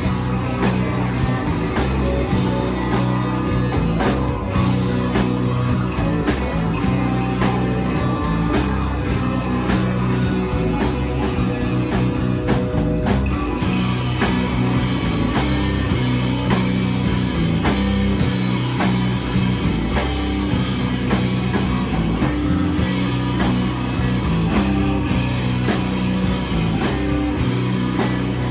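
Live rock band playing an instrumental passage: distorted bass and guitars over a steady drum beat, the cymbal wash changing about halfway through.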